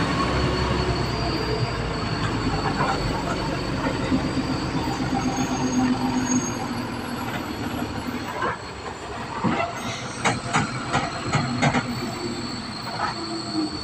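Heavy goods truck's diesel engine running and slowly fading as the truck pulls away uphill. A series of sharp clacks comes in the last few seconds.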